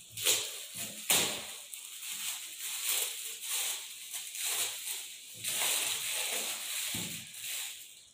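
Shiny red gift-wrapping paper crinkling and tearing as a present is unwrapped by hand, with a sharp rip about a second in.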